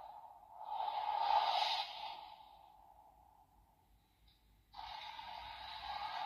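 Electronic sound effects played through the small speaker of a Premium DX Laser Raise Riser toy: a rushing noise that swells about a second in and fades away, then another starts suddenly near the end.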